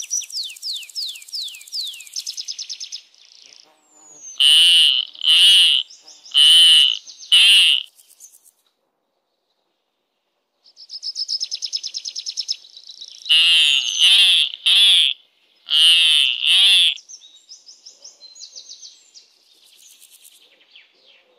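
Bald eagle calling: a fast chatter of high notes that fall in pitch, then a run of four loud, shrill calls. After a pause it calls again with more chatter and five shrill calls, and ends on softer chittering.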